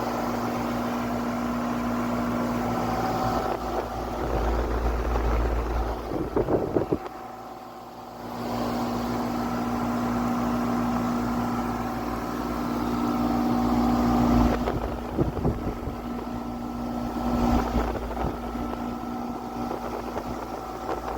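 Newly installed Bryant furnace blower motor running with a steady hum and a rush of moving air. It replaces an old motor that squeaked and had grown stiff and rusty. A few knocks come around six to seven seconds in, and the sound drops briefly about eight seconds in.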